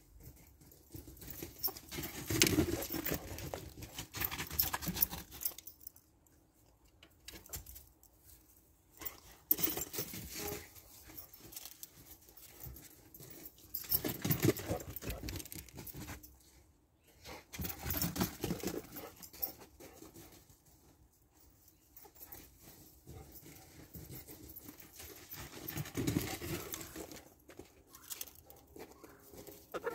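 Chickens moving about close to the camera, scratching and pecking, in irregular bursts of rustling every few seconds.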